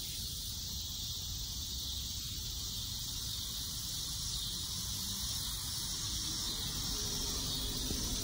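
Steady high-pitched chorus of insects in the garden, with a low rumble underneath.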